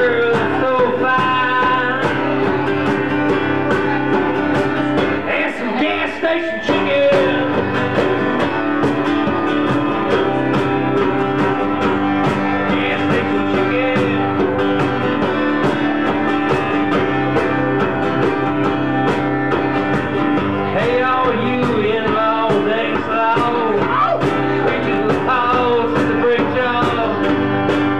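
Live punk-country song: a strummed acoustic guitar and a hand drum keeping a steady beat.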